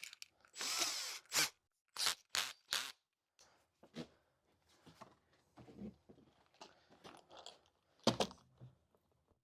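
Handling noise from a cordless drill and a pocket-hole drill bit being picked up and readied: a short rustle about a second in, then scattered clicks and knocks of plastic and metal, with a louder couple of knocks near the end. The drill is not run.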